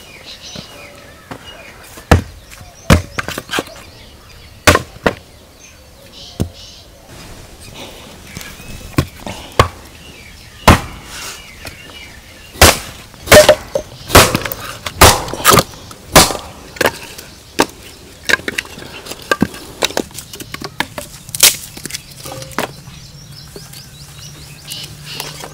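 A string of irregular, sharp knocks and cracks, about one a second and some loud, from hard objects being handled during cooking preparation. A faint low steady hum comes in near the end.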